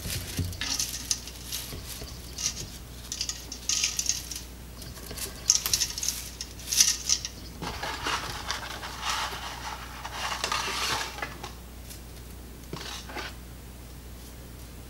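Dry linguine snapped in half by hand and dropped in handfuls into a stainless steel Instant Pot inner pot, the stiff sticks rattling and clattering against the metal and each other in repeated bursts. The clatter dies down about two-thirds of the way through, with one more short rattle near the end.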